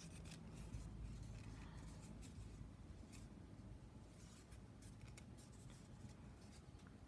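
Faint rubbing and light clicks of foam craft pieces being handled, over a low room hum.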